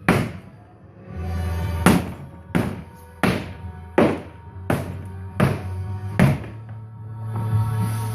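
Music with a steady beat of sharp, ringing hits about every 0.7 seconds over a sustained bass.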